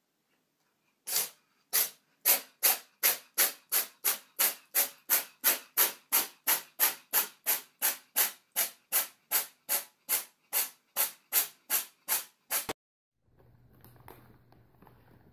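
A cat hissing in quick short puffs, about three a second for some eleven seconds, which cut off suddenly.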